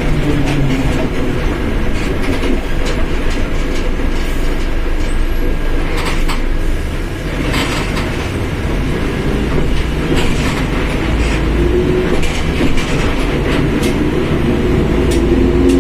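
Mercedes-Benz OF1721 bus under way: a steady drivetrain and road rumble with a differential whine that rises in pitch near the end. Occasional knocks and rattles come from the body going over bumps.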